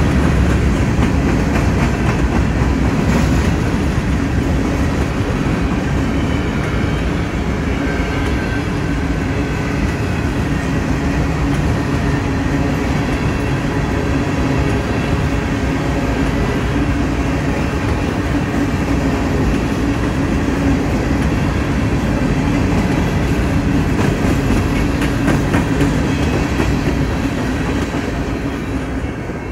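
Kansas City Southern freight train of covered grain hopper cars rolling past close by, with a steady rumble of steel wheels on the rails. The sound begins to fade near the end as the last car goes by.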